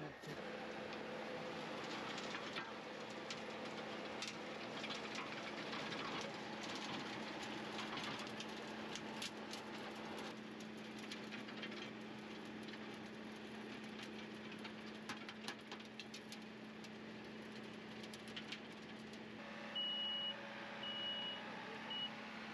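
Compact John Deere tractor's diesel engine running steadily under load while driving a rear rotary tiller through the soil. Near the end, a high warning beeper sounds three times.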